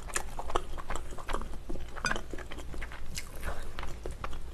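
Close-miked chewing of napa cabbage kimchi and rice: irregular wet smacking and crunching mouth sounds.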